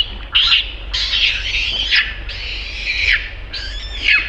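Baby macaque crying: a string of high, shrill cries, some over a second long, several sliding down in pitch at the end.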